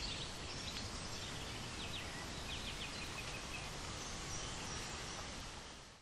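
Outdoor garden ambience: a steady background hiss with a few faint bird chirps, fading out at the end.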